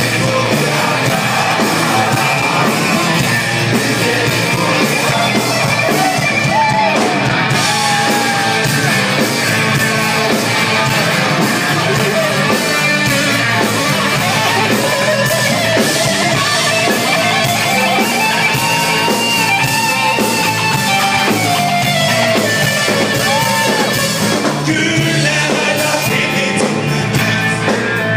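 Live rock band playing loud, with electric guitar, drums and saxophone, and a male voice singing.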